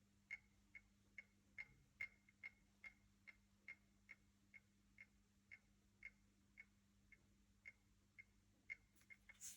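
Light, regular clicking of a rattle inside a Leica Q2 camera, about two to three clicks a second, with a quick flurry and one louder click near the end.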